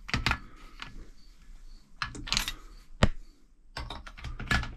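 Metal clicks and clatters of a socket on a torque wrench being fitted onto a motorcycle cylinder nut, in several short bursts with one sharp click about three seconds in.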